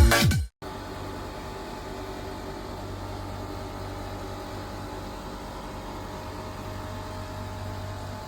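Background music cuts off half a second in, leaving a steady low hum with faint hiss that holds unchanged.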